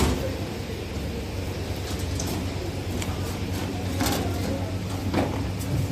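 Steady low mechanical hum, with a few knocks about four seconds in and again about a second later, as sacks are handled on a loading ramp.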